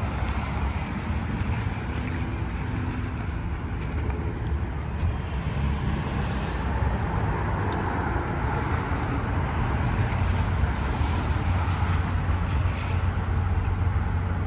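Steady low rumble of vehicle noise, even in level throughout.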